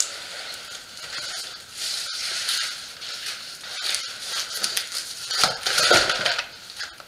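Large cardboard bike box scraping and rustling as it is handled and stood on end, in uneven surges with the loudest scrapes about six seconds in.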